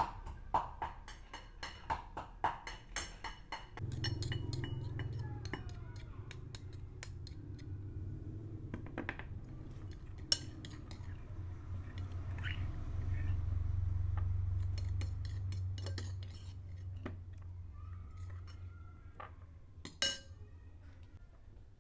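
Dishes and utensils clinking and knocking, a quick run of clinks for the first few seconds. Then a low steady hum sets in for about twelve seconds with scattered clinks over it, and there is one sharp clink near the end.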